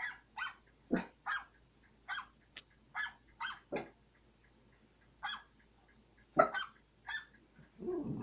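Small dog barking again and again in short, sharp, high-pitched barks, about a dozen in irregular bursts, the loudest one about six and a half seconds in.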